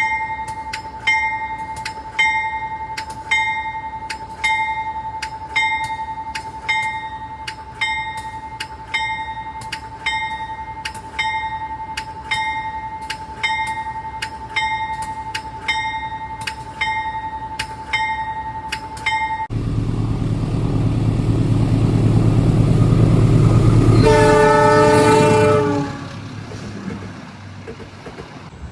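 Locomotive bell ringing steadily about once a second. After an abrupt cut, a train rumbles close by, growing louder, and a diesel locomotive's multi-tone horn sounds one short blast before the rumble falls away.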